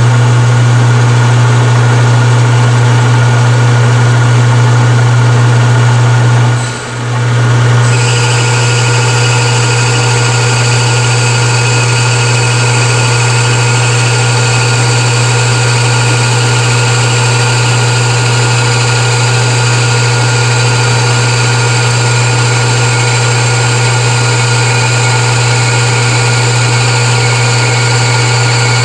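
Metal lathe running under power feed on a roughing pass, turning a cross shaft down with a roughing insert: a loud steady hum with several steady tones. It dips briefly about seven seconds in, then a higher steady whine joins and holds.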